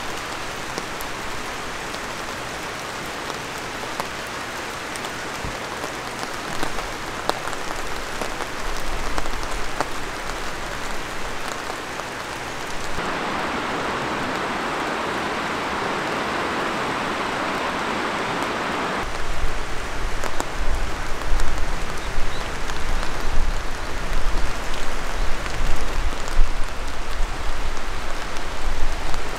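Light rain falling, a steady hiss of drizzle with scattered drop ticks. Midway it changes for about six seconds to a denser, closer hiss. Near the end it becomes uneven and louder, with a low rumble underneath.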